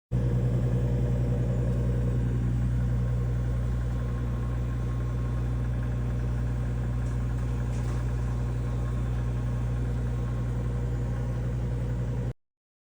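Microwave oven running: a steady low electrical hum with a fan whir, cutting off suddenly near the end.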